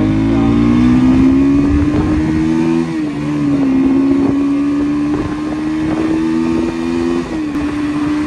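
Motorcycle engine running under way while riding; its note climbs slowly, drops about three seconds in, climbs again and drops once more near the end.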